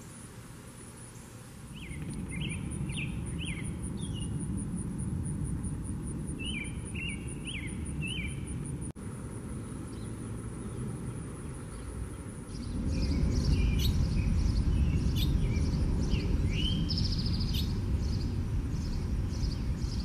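Wild songbirds singing short phrases of about four quick sliding notes, repeated a few seconds apart, over a low wind rumble. In the second half the rumble is louder and more bird notes come with a high steady insect-like buzz.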